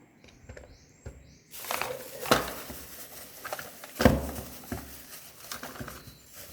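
Rustling handling noise with a couple of sharp knocks, the loudest about four seconds in, as cordless power-tool batteries are swapped on and off a weighing scale.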